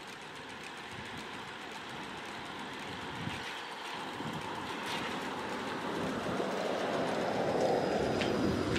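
Trolleybus approaching and passing close by, its running and tyre noise growing steadily louder as it nears.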